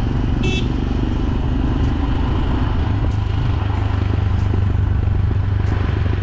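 Motorcycle running steadily while being ridden downhill, a dense low rumble with rushing noise. A vehicle horn gives one short toot about half a second in.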